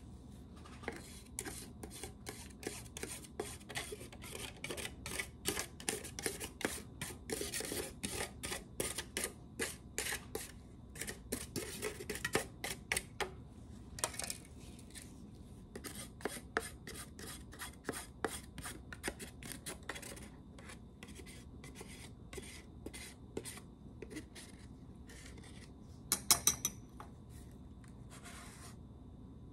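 Quick, repeated scraping and tapping strokes of a metal pharmacy spatula working powder and cream off a weighing boat into a porcelain mortar, about three a second, thinning out after about twenty seconds. A brief louder clatter comes near the end.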